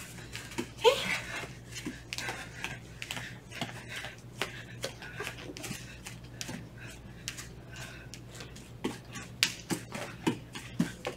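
Bare feet tapping and padding on martial-arts floor mats in quick, irregular light steps as someone jogs and shuffles in place.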